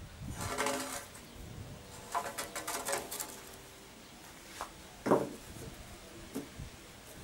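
Sawn wooden beams being handled: scraping and clattering of timber as a beam is lifted, then one loud knock about five seconds in as it is set down on the stack, with a lighter knock after.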